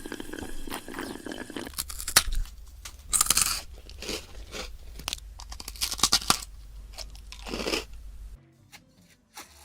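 Close-miked crunching and chewing of food, with a run of crisp clicks and several louder crunches, the last of them a little over a second before the end. The crunching then stops abruptly and the sound drops away.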